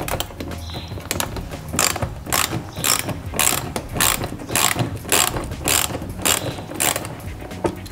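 Socket ratchet clicking in short repeated bursts, about three a second, as a bolt is being undone.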